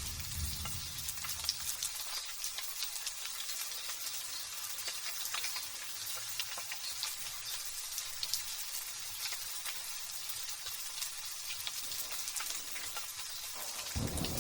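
Light drizzle pattering: a steady fine hiss of many small drop ticks. A low rumble fades out about two seconds in and returns near the end.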